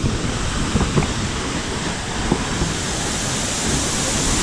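Steady rushing of a large waterfall in heavy, torrential flow.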